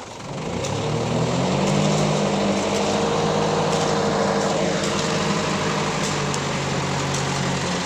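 A dump truck's engine running close by: it climbs in pitch just after the start, then runs steadily. A falling whine sweeps down about four to five seconds in.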